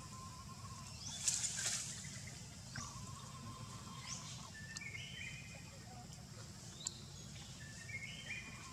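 Forest birds chirping: repeated short rising calls and a few stepped whistled notes over a steady low background rumble, with a brief rustling burst about a second in.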